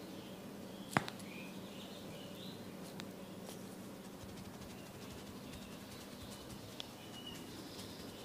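Birds chirping in the background over a steady low hum, with one sharp click about a second in and a few fainter ticks later.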